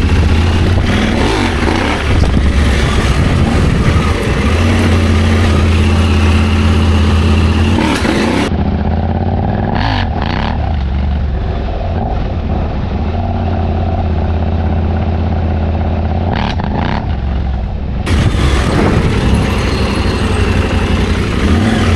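Adventure motorcycle engine running and revving on and off as the bike is ridden over a sandy off-road trail, heard from on board. The sound turns duller from about eight seconds in until about eighteen seconds.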